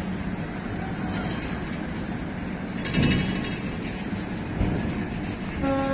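Rumbling of heavy rail wagons being moved, with a brief louder surge about three seconds in and a knock near the five-second mark. A steady horn starts just before the end.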